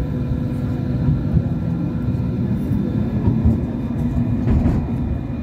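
Hong Kong Light Rail Phase I tram running along the track, heard from inside the car: a steady low rumble of wheels on rail with a faint steady hum of the traction equipment.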